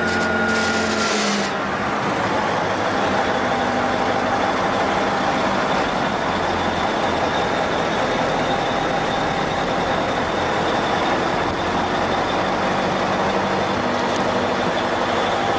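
A heavy vehicle engine runs steadily and loudly. A higher hiss and whine die away about a second and a half in.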